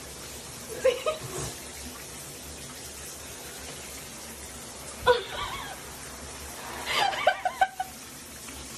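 A person laughing in three short bursts, about a second in, near the middle and near the end, over a steady background hiss.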